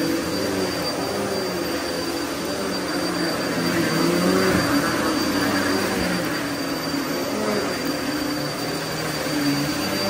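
Upright vacuum cleaner running as it is pushed back and forth over carpet along a wall. Its motor hum wavers in pitch as the load changes, over a steady high whine.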